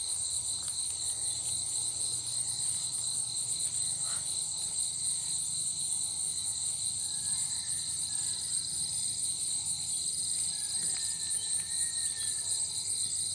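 Night chorus of crickets and other insects: a dense, steady high-pitched trilling, with a faint low hum underneath.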